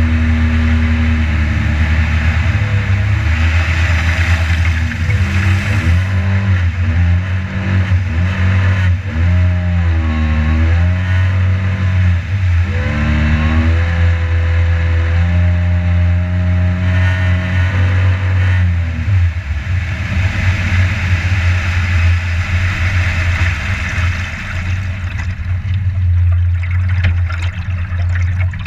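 Boat motor running under way, its pitch rising and falling several times with the throttle, then dropping lower about two-thirds of the way in, with water rushing past the hull.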